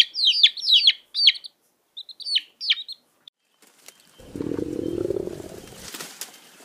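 Domestic chicks peeping, short high calls that sweep downward several times a second, stopping about three seconds in. After a short pause a low rumble comes in and runs on.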